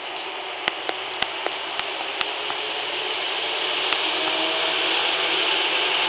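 Diesel locomotive moving slowly past: a steady rushing noise that grows louder, with a run of sharp clicks in the first four seconds.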